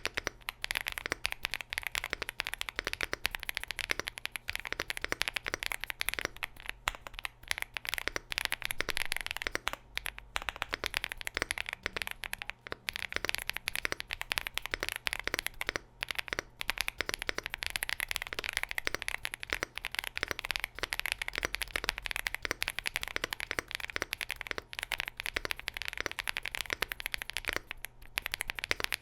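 Fast continuous typing on a mechanical keyboard with Kailh Cocoa switches and PBT keycaps, in an aluminium gasket-mounted case with an FR4 plate: a dense run of key clicks with a few short pauses.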